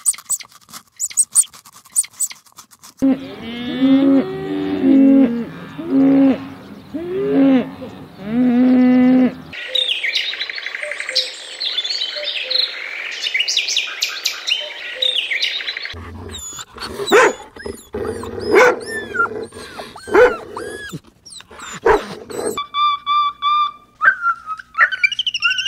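A string of animal sounds. It opens with a rabbit crunching on a lettuce leaf in short sharp clicks, then repeated wavering animal cries. A budgerigar chatters in dense high chirps, followed by sharp clicks and short calls. Near the end steady music tones come in.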